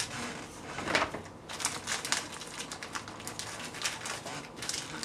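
Hands handling peeled garlic cloves at the pressure cooker and on the countertop: a run of light, irregular clicks and taps.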